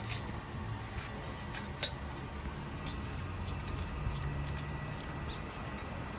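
A few faint, sharp clicks and knocks of tools and brake parts being handled, over a low steady background hum.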